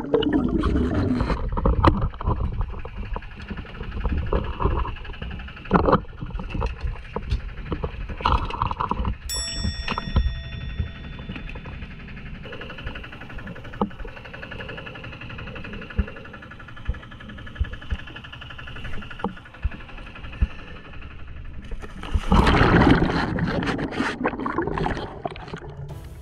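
Water gurgling and rushing with scattered clicks and knocks, loudest at the start and again for a few seconds near the end.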